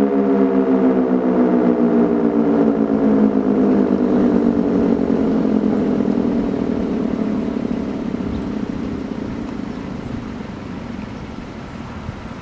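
Sentry 16V2T two-tone outdoor warning siren winding down at the end of its test. Its tones glide steadily lower and the sound fades gradually as the rotor slows.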